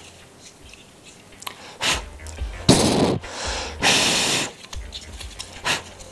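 Two short hissing bursts of air about a second apart, the second one brighter, with a few sharp knocks around them.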